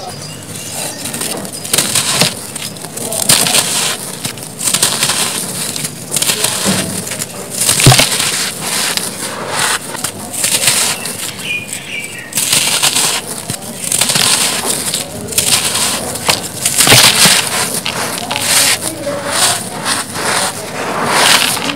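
Hands raking, scooping and crumbling dry cement dust and grit with small cement blocks, in repeated crunchy, sandy surges. Twice there is a short dull knock.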